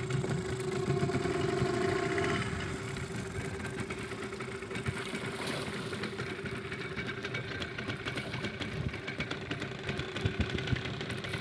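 An engine running steadily with a constant hum, a little louder for the first couple of seconds and then even.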